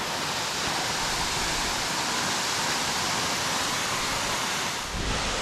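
Steady rushing of a waterfall. Near the end, a low rumble of wind buffeting the microphone comes in.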